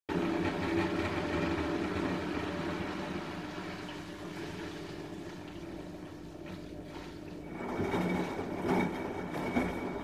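Washing machine running: a steady mechanical hum of motor and turning drum. About seven and a half seconds in it grows louder, with a steady high whine and uneven surges.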